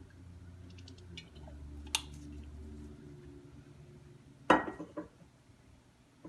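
Kitchen utensils and dishes handled over a low steady hum, which fades after about three seconds: a few light clicks, then a sharper knock with a brief ring about four and a half seconds in, followed by a couple of lighter clinks.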